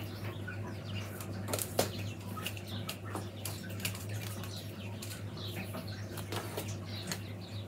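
Buff willow rods rustling and rubbing as they are wound and pulled through a wreath hoop by hand, with irregular light clicks and creaks of the rods.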